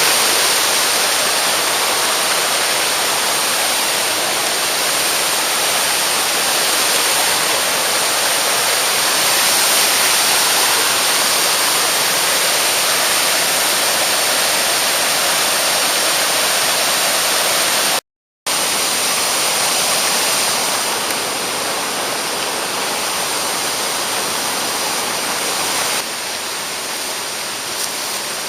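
Mountain stream rushing over rocks, a loud steady wash of water. It cuts out for a moment about two-thirds of the way through and is a little quieter near the end.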